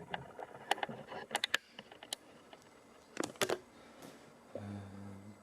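Light clicks and taps of tools and a metal lock cylinder being handled on a workbench, some in quick little clusters. A short, steady low hum starts near the end.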